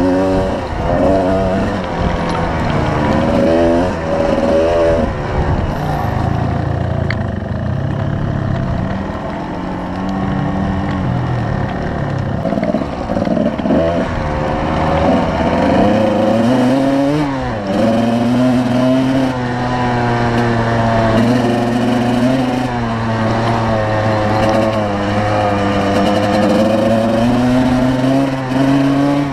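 2005 Kawasaki KDX220R's two-stroke single-cylinder engine under way on a dirt trail, revving up and down repeatedly through the first half, then holding a steadier pitch after a brief drop about seventeen seconds in.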